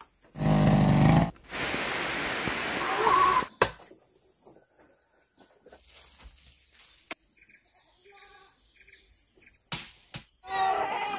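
Goats bleating: one loud call about half a second in and another wavering one starting near the end, with about two seconds of hiss and a few sharp knocks and faint chirps in between.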